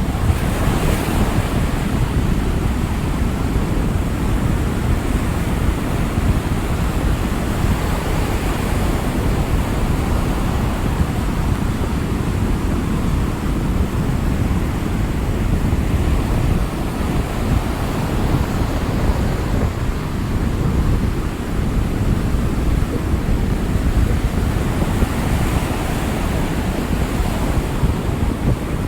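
Rough Atlantic ocean surf: waves breaking in surges of hiss about a second in, around eight seconds and again near the end, over a constant low rumble.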